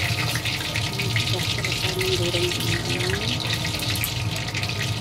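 Hot oil sizzling and crackling steadily in a wok as shrimp spring rolls deep-fry, with a steady low hum underneath.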